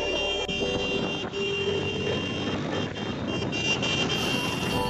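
Motorcycles riding through busy town traffic: a steady low engine and road rumble, with held high-pitched tones on top.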